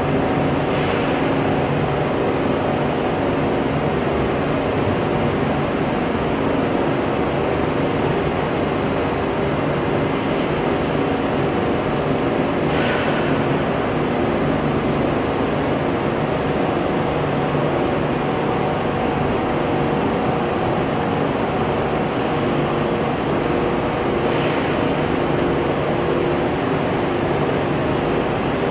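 Steady industrial machinery noise: a constant hum made of several steady tones over a hiss, with a few faint short sounds now and then.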